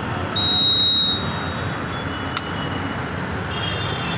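Digital air inflator under test on a running air compressor: a steady mechanical hum and air noise, with one long high-pitched beep about half a second in and a single sharp click a little after halfway.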